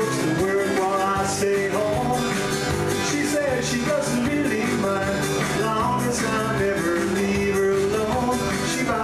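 Live solo music: an acoustic guitar strummed steadily under a held melody line.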